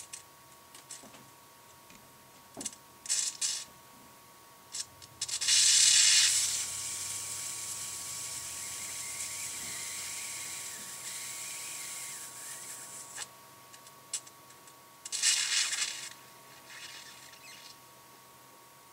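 Fermentation gas hissing and sputtering out through an airlock clogged with imperial stout krausen, the foam forced up and out of its top by a vigorous primary fermentation. Irregular hissing spurts, the loudest about five seconds in, settle into a steady hiss until about thirteen seconds; another spurt comes near fifteen seconds.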